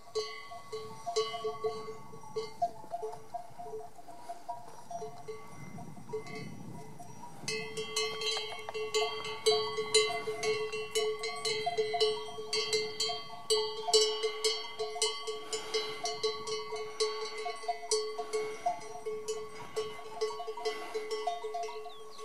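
Many livestock bells at several different pitches clanking irregularly, as on a grazing flock or herd. The clanking grows denser and louder about seven and a half seconds in.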